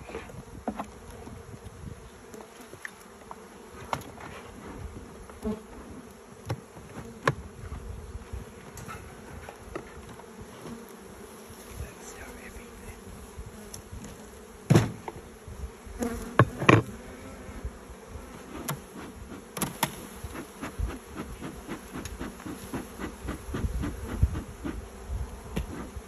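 Honeybees buzzing around an opened wooden hive, a steady hum of many bees, broken by sharp knocks and clicks as the hive boxes are handled. The loudest knocks come a little past halfway.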